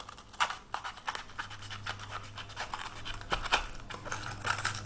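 Small paring knife cutting the seed core and white ribs out of a halved green bell pepper: a quick run of short, crisp cuts and scrapes through the pepper flesh.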